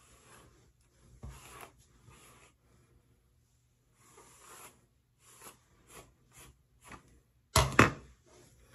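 Hairbrush strokes through dry, straightened hair: a run of dry swishes, a few slower ones and then about five quick short ones. Near the end come two loud knocks, the loudest sounds here.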